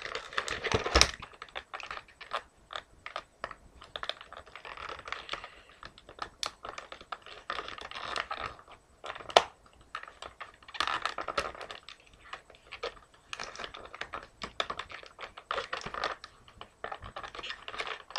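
Plastic toy packaging being handled and twist ties worked loose: irregular rustling, scraping and small clicks, with one sharp click about nine seconds in.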